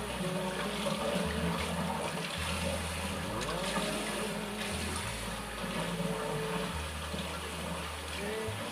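Water running steadily, as from a tap or filling basin, with a continuous splashing hiss.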